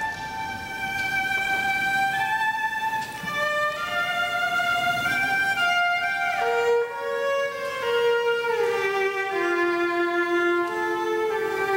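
Solo cello playing a slow bowed melody of sustained notes high in its range, sliding down to lower notes about halfway through.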